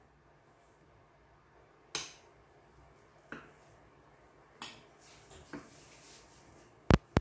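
Kitchen knife knocking and scraping on a stone countertop as it cuts through soft bread dough: a few scattered light taps, then two sharp, louder clicks in quick succession near the end.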